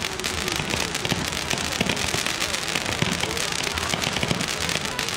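Ground-fired fireworks crackling and popping, a dense rapid string of small sharp cracks with no single big bang standing out.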